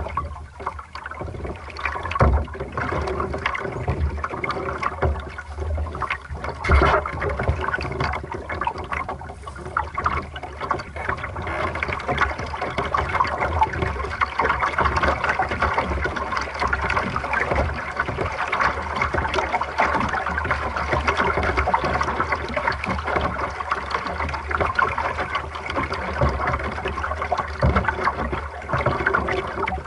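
Water rushing and splashing along the hull of a small Aqu@Muse sailboat under sail. The sound grows louder and steadier after about twelve seconds as the boat picks up speed. Two sharp knocks come in the first seven seconds.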